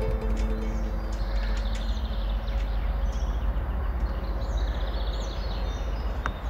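Outdoor ambience: a steady low rumbling noise with small birds chirping high and thin between about three and five and a half seconds in, and a few scattered sharp clicks.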